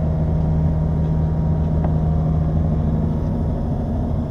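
A diesel engine of a machine on the repair site running steadily at constant speed, an even low hum.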